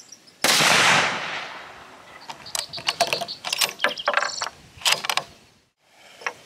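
A single shot from a Savage Axis II bolt-action rifle in .243 Winchester: a sharp crack that fades out over about a second and a half. It is followed by a quick run of metallic clicks and clacks as the rifle's action is worked.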